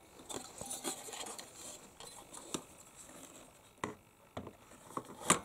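A CPU cooler, a heatsink with a fan in a plastic shroud, rubbing and scraping as it is set down and shifted into place inside a desktop PC case. Several sharp clicks and knocks come through it, the loudest just before the end.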